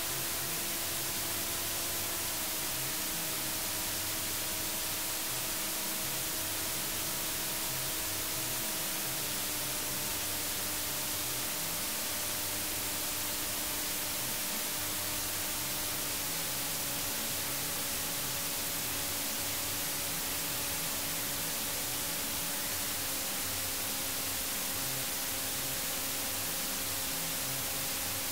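Steady hiss of electronic white noise, with a faint droning tone underneath that drops slightly in pitch in several steps.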